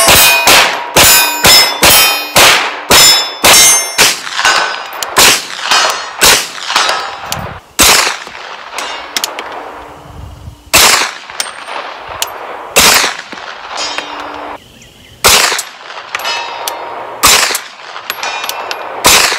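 Glock pistol in a bullpup conversion kit firing: a fast string of shots, about two or three a second, then single shots a second or two apart. Steel targets ring after the hits.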